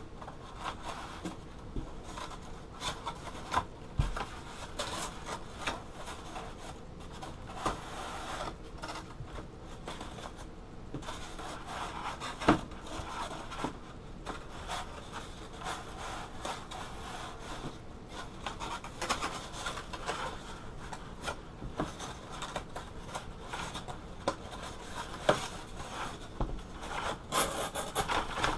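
Foam-board fuselage and wing plate rubbing and scraping against each other as the fuselage's tabs are pushed into the wing plate's slots, with a few sharp taps along the way.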